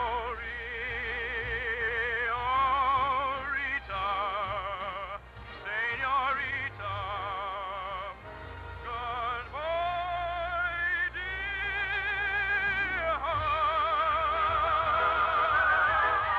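A woman's operatic voice singing an operetta melody with wide, regular vibrato, holding long notes and climbing higher toward the end. It is an old mono radio recording with the high treble cut off.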